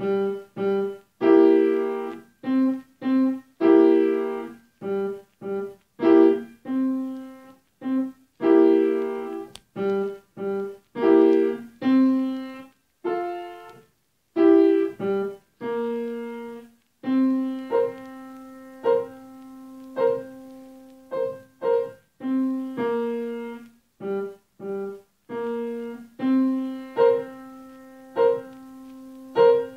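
Grand piano played solo: detached chords struck in a steady rhythm with brief pauses between phrases, then, about halfway through, low notes held under repeated higher notes.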